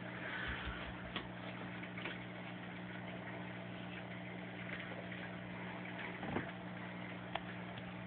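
Aquarium pump humming steadily under a faint hiss of bubbling water, with a few soft clicks.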